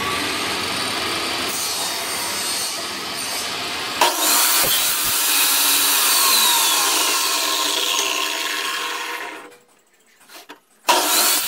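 Table saw ripping a thin strip off a wooden board, the blade's noise loud and steady. About four seconds in there is a sharp knock and the sound turns brighter; it drops away about 9.5 seconds in, and a short burst of saw noise comes just before the end.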